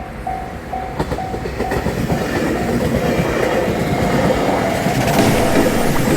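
Japanese level-crossing warning bell ringing about twice a second while a train comes through, its wheels clacking over the rail joints and growing louder as it draws near.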